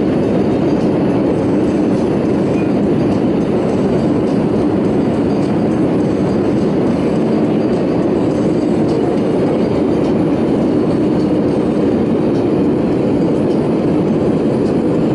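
Steady engine and airflow noise heard inside an Airbus A320 passenger cabin in flight, an even rumble with no changes.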